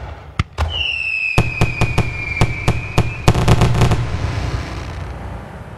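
Fireworks going off: sharp single bangs, a whistling firework whose whistle falls slightly in pitch over about two and a half seconds, then a quick string of crackling bangs about halfway through. The noise then fades away.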